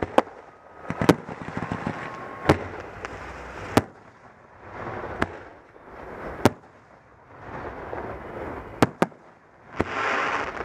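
Aerial fireworks shells bursting overhead: about ten sharp bangs, one every second or so, with crackling between them. A louder hissing crackle swells near the end.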